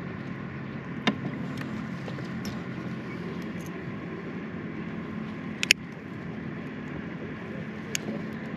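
Boat motor running steadily with a low hum, while a few sharp clicks and knocks sound over it, the loudest about halfway through.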